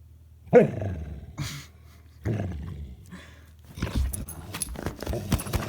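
Dog play-growling while roughhousing: a loud growl about half a second in, another about two seconds later, then scuffling and clicking.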